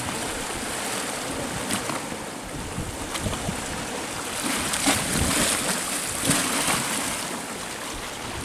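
Sea surf washing and foaming against the rocks below a stone pier, a steady rushing wash that swells for a few seconds around the middle.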